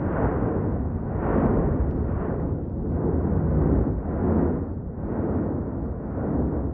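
La Palma volcano erupting: a continuous low rumble from the vent that swells and eases about every second or so.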